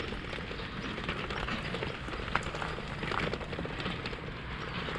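Bicycle tyres rolling over a gravel path: a steady crunching crackle made of many small clicks, with one sharper click about two and a half seconds in.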